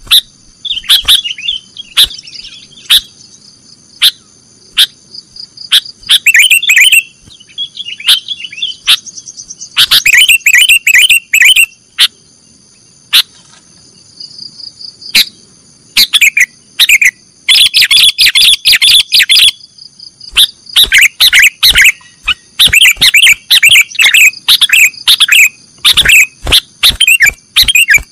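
Sooty-headed bulbul (kutilang) singing in the 'nggaruda' song style: loud bursts of quick chattering chirp phrases and sharp clicking notes, broken by short pauses, over a steady high-pitched whine.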